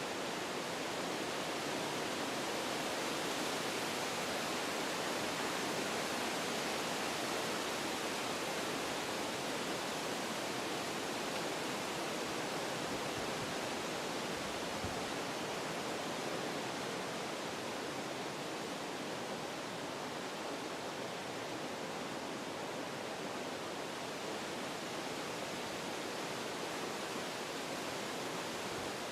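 Wind blowing through forest trees, a steady rushing of leaves and branches that swells slightly in the first few seconds and eases a little later on.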